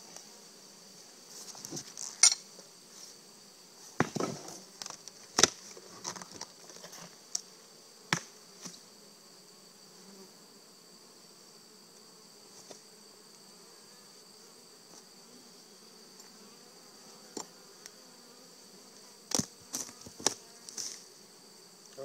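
Hive tool prying at wooden beehive boxes: sharp cracks and knocks of wood and metal, several in the first half and a cluster near the end. Underneath runs a steady high insect drone.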